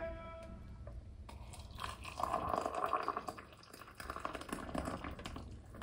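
Water poured into a glass mug over a tea bag, the pour loudest about two seconds in and trailing off into small splashes.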